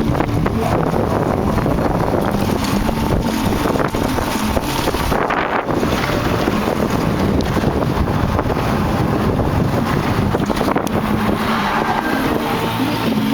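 Wind buffeting the microphone over the rumble and rattle of a dirt bike on the move, a steady loud noise with many small knocks.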